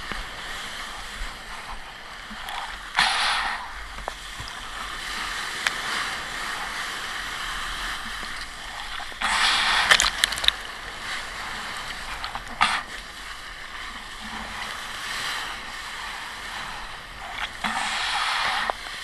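Water rushing and hissing past a surfboard-mounted camera as the board rides a wave, with louder splashes of whitewater spray hitting it about three seconds in, around nine to ten seconds in, and again near the end.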